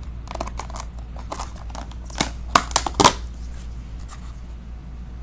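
Clicking and crackling of a thin plastic takeaway food container being handled, with a few sharp plastic snaps a little past the middle.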